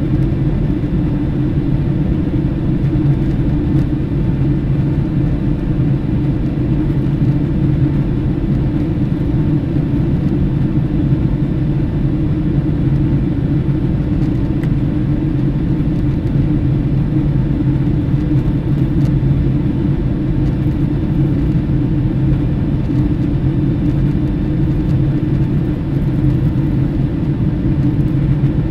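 Steady, unchanging low rumble of a vehicle in motion, with a few faint steady tones above it.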